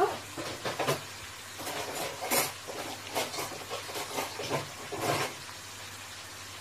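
Pieces of lisan el-ter pastry dough deep-frying in hot oil, sizzling steadily, with louder spells of sizzling every second or so up to about five seconds in.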